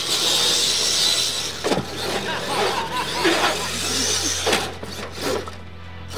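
Radio-controlled monster truck tumbling and driving on packed dirt: a high motor whine at first, then several knocks as the truck rolls over and lands back on its wheels.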